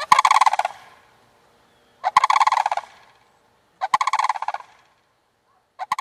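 Sandhill cranes calling: four rolling, rattling calls, each under a second long and about two seconds apart.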